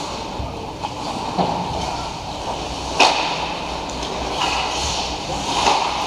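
Ice hockey play: skates scraping on the ice, with a few sharp cracks of stick and puck. The loudest crack comes about three seconds in.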